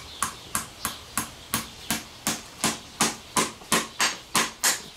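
Farrier's hammer striking horseshoe nails into a horse's hoof, a quick even series of sharp metallic taps at about three a second, growing somewhat louder.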